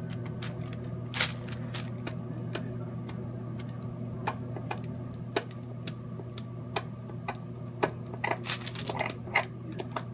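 Metal dab tool scraping and tapping as resin is collected off parchment paper: irregular sharp clicks and scrapes, a little busier near the end, over a steady low hum.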